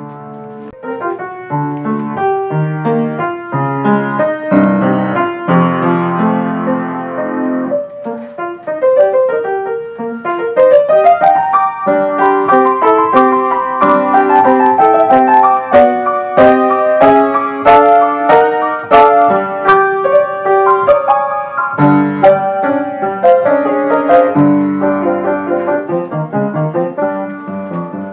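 Pramberger grand piano played solo: a lively classical piece with quick runs and chords, getting louder in the middle with many sharp accented notes.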